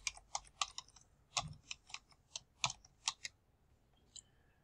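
Typing on a computer keyboard: a quick run of about a dozen keystrokes that stops a little over three seconds in, followed by one faint click.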